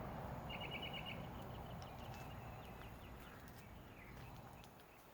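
Faint wild birdsong: a quick run of about six short high notes about half a second in, then scattered faint chirps over a soft background hiss that slowly fades.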